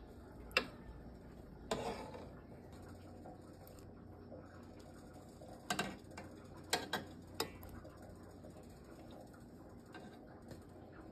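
Faint room background with a handful of scattered light clicks and knocks, a few of them close together a little past the middle.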